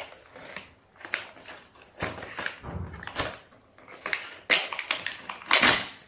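Cardboard and plastic toy packaging being torn open and crinkled by hand in irregular bursts, the loudest near the end.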